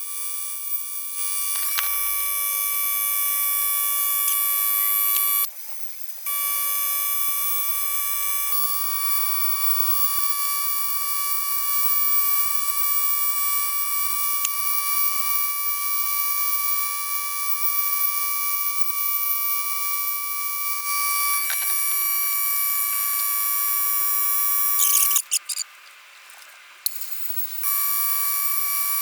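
Neiko pencil-style air die grinder with a carbide burr carving wood, running at high speed with a steady high-pitched whine. It cuts out briefly about five seconds in and again for about two seconds near the end, then starts up again.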